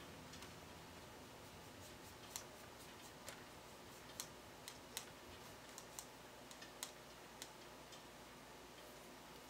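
Near silence: quiet room tone with about a dozen faint, sharp clicks at irregular intervals in the middle of the stretch.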